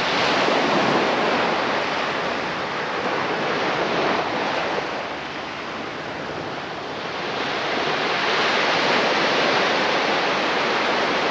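Small surf breaking on a sandy beach, the wash swelling and easing in slow surges, louder near the start and again in the second half.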